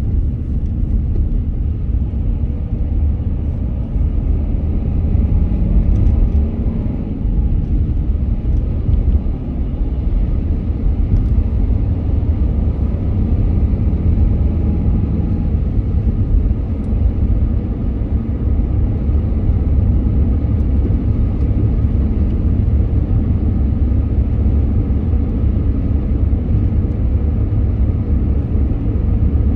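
Steady low rumble of a car driving on city streets: road and engine noise, with a faint engine note changing pitch a few seconds in.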